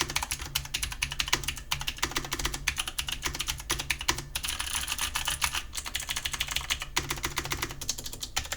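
Typing on a full-size mechanical keyboard with Outemu blue clicky switches: a fast, continuous stream of sharp key clicks.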